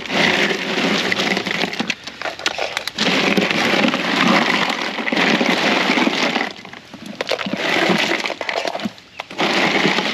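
Ice crunching and clattering in an esky as chilled mud crabs are dug out of it, coming in several long spells with brief pauses between.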